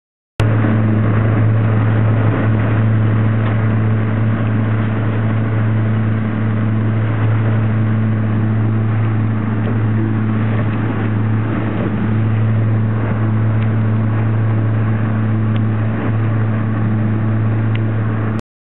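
Motorboat's outboard motor running steadily at cruising speed, a constant low hum mixed with rushing water and wind. It starts abruptly and cuts off suddenly near the end.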